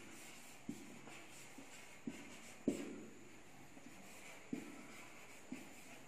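Marker pen writing on a whiteboard: faint scratching of the tip, with about five short taps as it meets the board.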